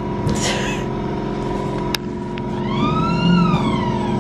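Small family roller coaster running along its steel track with a steady mechanical hum. About three seconds in, a high squeal rises and then falls.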